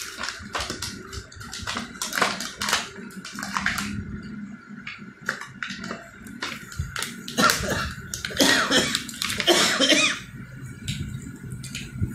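Clear plastic blister packaging crinkling and crackling as it is pulled and peeled off a toy set's cardboard backing, with sharp crackles throughout and a louder, denser stretch of crumpling about two thirds of the way in.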